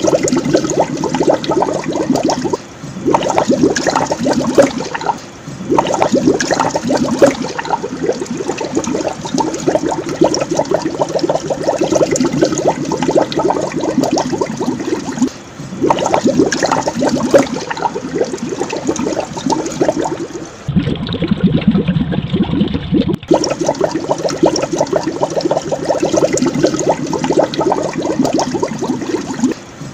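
Aquarium aeration: a continuous stream of air bubbles bubbling up through the tank water, with brief dips every few seconds and a duller, muffled stretch about two-thirds of the way through.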